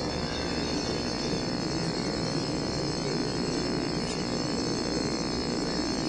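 Steady background ambience: a continuous high-pitched trill over a low, even rumble.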